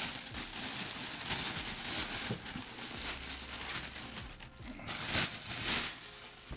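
Thin plastic bag rustling and crinkling in irregular swishes as it is handled and pulled off a foam-wrapped helmet.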